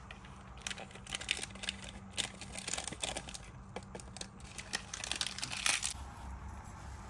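Foil coffee sachet crinkling as instant cappuccino powder is shaken out of it into a ceramic mug, with many small crackles and light taps. It stops about six seconds in.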